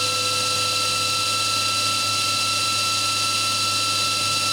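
Cincinnati Milacron Arrow 500 vertical machining center's spindle running at a steady 6,000 RPM: a steady machine whine made of several fixed tones over a low hum.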